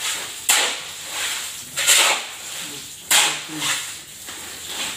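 Shovels scraping and chopping through a wet sand-and-cement mix on a concrete floor, a rough scrape about every second.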